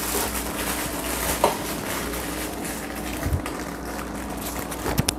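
Steady hiss and hum of a kitchen, with a few light clinks as a metal pot is handled.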